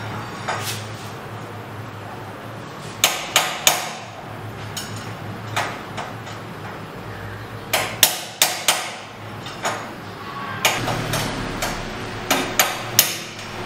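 A hammer striking a chisel to drive the worn steel bearing races out of a Suzuki GS150 motorcycle's steering head. The sharp metallic strikes each ring briefly and come in irregular groups of two to four. The blows are tapped in turn around the race because it is a tight fit in the head tube.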